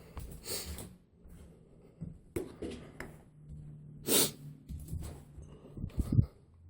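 A person moving about and handling things: scattered faint knocks and rustles, with a short, louder hiss about four seconds in.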